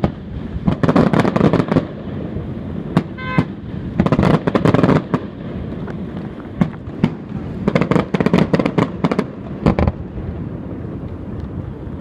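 Aerial firework shells bursting, in several clusters of sharp bangs and crackling a few seconds apart.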